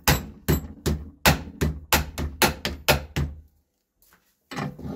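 Hammer blows on a flexible TPU 3D-printed RC car suspension arm clamped in a steel bench vise: a fast run of about ten sharp strikes, roughly three a second, that stops about three and a half seconds in. The printed arm takes the blows without breaking.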